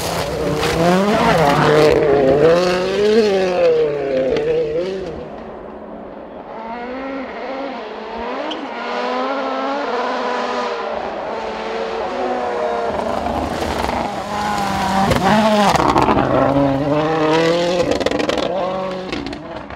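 Rally car engine at full throttle, its pitch sweeping up and dropping back with each gear change. It is loud at first, falls away around six seconds in, then builds again to a second loud peak near the end.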